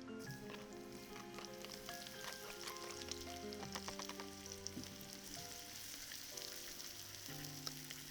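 Food sizzling and crackling in a hot pan, the hiss growing fuller after a few seconds, over soft background music of held notes.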